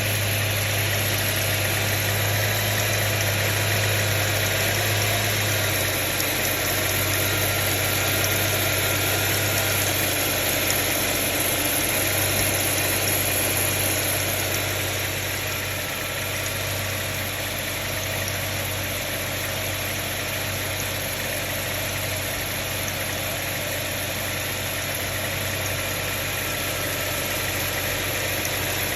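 Subaru Tribeca's 3.0-litre flat-six engine idling steadily, with a running noise that the owner takes for the timing chain. The sound eases slightly about halfway through.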